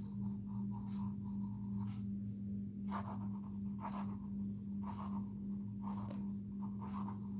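Cello 0.9 mm mechanical pencil lead scratching across paper in a run of short strokes, over a steady low electrical hum.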